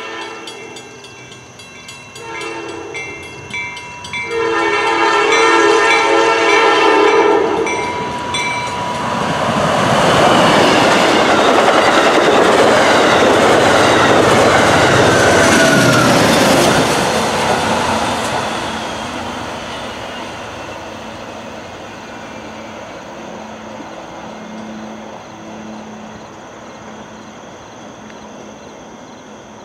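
Amtrak Downeaster passenger train sounding its horn in a few blasts, the last one long, then passing close at speed with a loud rush and clatter of wheels on rail. The sound fades with the low throb of the GE P40 diesel locomotive pushing at the rear.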